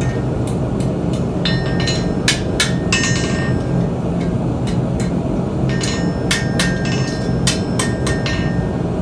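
Hammer striking steel on an anvil in irregular runs of blows, each with a short metallic ring, over a steady low rumble.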